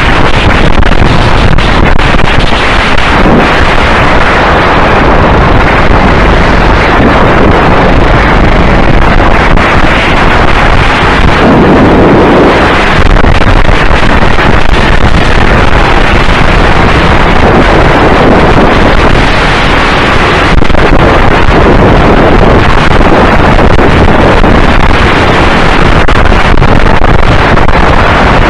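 Go-kart engine running through a lap, heavily buffeted by wind on the kart-mounted microphone; very loud and steady throughout.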